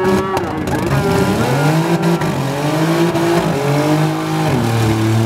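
Six-cylinder demolition derby car engine revving hard, its pitch rising and falling over several seconds, then dropping near the end, as the car spins its wheels in the mud.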